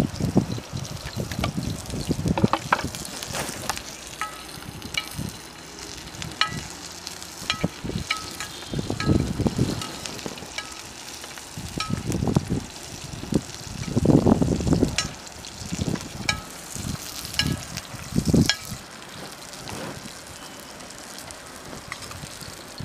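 Chopped onions, garlic and green chillies sizzling in hot oil in a shallow pan over a wood fire, stirred with a perforated metal ladle. Several louder low rushes of about a second come and go.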